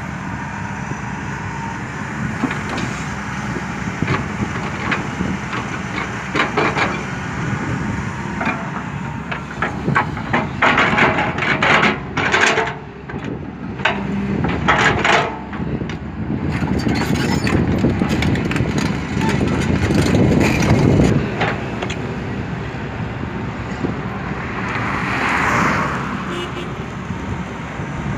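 Hyundai crawler excavator's diesel engine and hydraulics working as it digs and loads soil, with clusters of knocks and scrapes from the steel bucket striking stones and broken concrete near the middle, then the engine louder under load for a few seconds.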